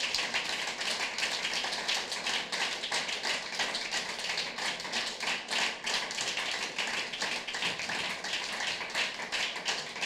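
Audience applauding steadily, a dense patter of individual hand claps.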